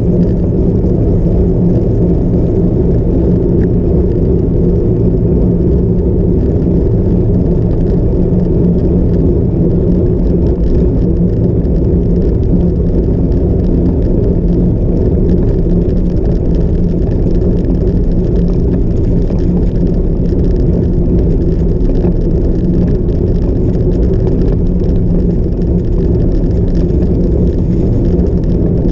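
Cyclocross bike being ridden off-road, a steady loud low rumble with a whir.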